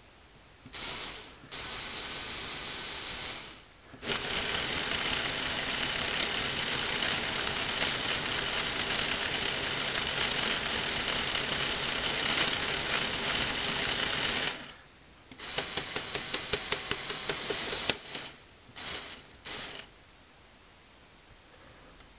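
Lego Technic gearbox: small electric motors driving a long train of plastic gears, whirring and rattling in runs that start and stop, the longest about ten seconds. A later run carries regular clicks, about five a second, and two short bursts come near the end before the motors stop.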